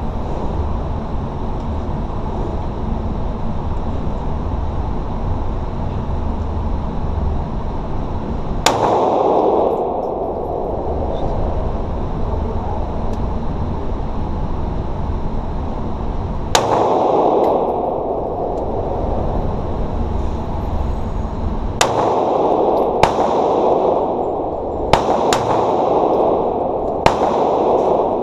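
Heckler & Koch VP9 9mm pistol fired at an indoor range: two single shots about eight seconds apart, then about six more in quicker succession near the end, each shot ringing off the range walls. A steady low rumble runs underneath.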